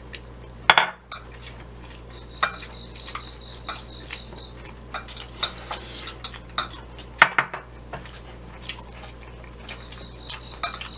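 Metal chopsticks clinking and tapping against a small ceramic bowl of soy sauce as sushi is dipped and lifted, in scattered light clicks with two sharper knocks, about a second in and about seven seconds in.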